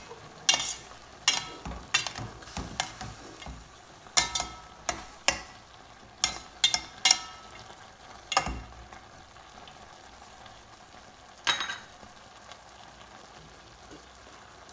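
Spoon stirring a thick vegetable and dal curry in a stainless steel pan: a run of sharp scrapes and knocks against the pan for about eight seconds, then a single knock a few seconds later.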